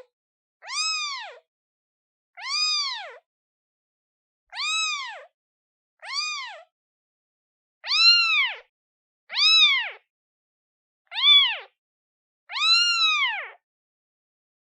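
One-day-old newborn kitten meowing repeatedly, calling for its mother: eight thin, high-pitched mews about every one and a half seconds, each rising then falling in pitch. The later calls are louder, and the last one is drawn out longest.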